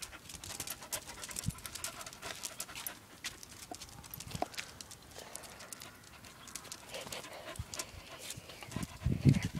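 Spaniel panting excitedly, with many scattered short clicks and taps as it moves about, and a louder low thump about nine seconds in.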